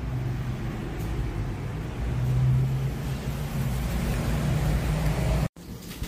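Steady low hum and rumble with a faint wavering drone, cut off abruptly about five and a half seconds in, then resuming more quietly.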